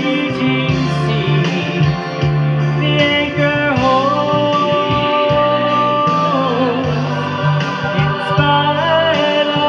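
Gospel song with guitar accompaniment, a singer holding one long wavering note through the middle.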